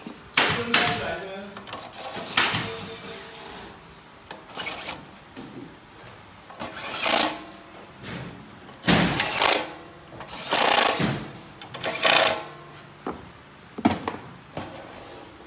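Metal parts of a small gear-driven roller cutting machine clattering and scraping in a string of irregular bursts as it is taken apart or fitted together by hand with a screwdriver.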